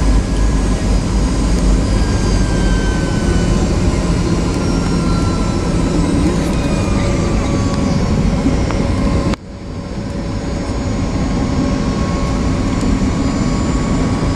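A Tupolev Tu-204-100E airliner's PS-90A turbofans and rushing air, heard from inside the cabin on final approach: a steady rumble with engine whine tones, some of which slowly slide in pitch. About nine seconds in the sound drops abruptly, then builds back up over a couple of seconds.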